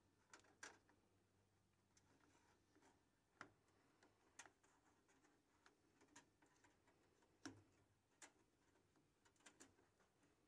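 Near silence with faint, irregular small clicks and taps, about a dozen, as a Porsche cowl vent grille and its sheet-metal screws are handled and fitted.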